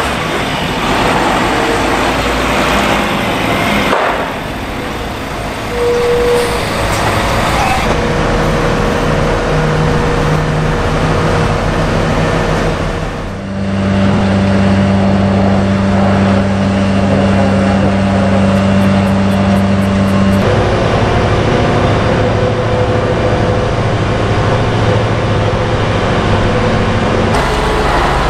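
Heavy diesel engines running: a semi-trailer truck and construction machinery such as a wheel loader, with road traffic. The sound changes abruptly several times, and there is a steady engine drone in the middle.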